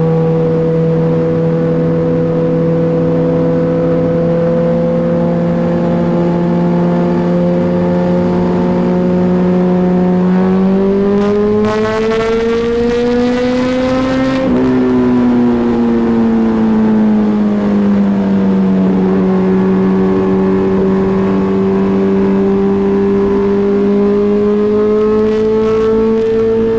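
MV Agusta F4R inline-four engine running through a Termignoni full exhaust system with a steady, even note. About ten seconds in, the pitch climbs smoothly for a few seconds, then eases back down and settles.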